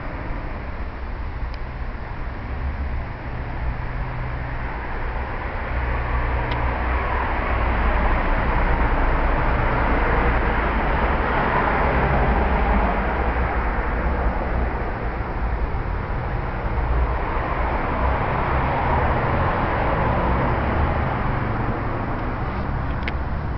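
Street traffic: a steady rush of passing vehicles with a low rumble, swelling louder through the middle and easing off again.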